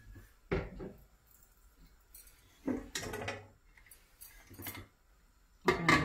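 Metal kitchenware clinking and knocking in a few separate short bursts. Near the end comes a louder clatter as a pressure cooker's metal lid is fitted onto the pot.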